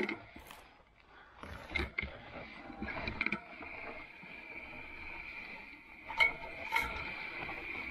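Electric fat bike's drivetrain over rough ground: scattered clicks and knocks of chain and freewheel, then from about three seconds in a steady high whine of the e-bike motor under power.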